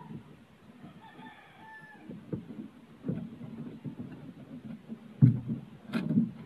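A rooster crows once, faintly, about a second in, followed by close knocks and rustles from hands handling the bait rig, the loudest near the end with one sharp click.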